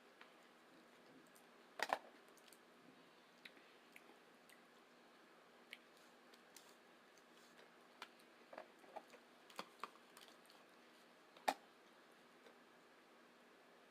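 Faint chewing of tacos with scattered small wet mouth clicks. A sharper double click stands out about two seconds in, and another single click comes later on.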